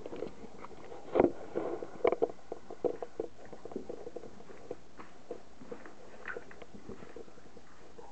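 Standard poodle puppies about three and a half weeks old lapping and smacking at mushy soaked kibble: a run of quick wet clicks and smacks, densest in the first few seconds, with two louder knocks about a second and two seconds in, then thinning to scattered ticks.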